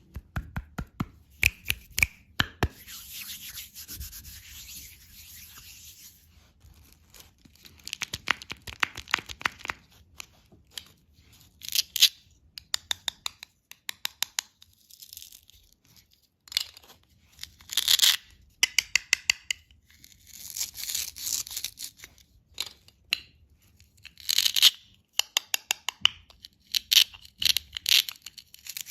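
Candy packaging being unwrapped and handled by hand: plastic wrappers rubbed and torn, with many sharp clicks and taps in quick runs.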